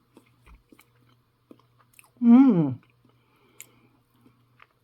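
Quiet chewing of a mouthful of soft turkey pâté, with small wet mouth clicks, and a short falling hummed "mmm" about two seconds in.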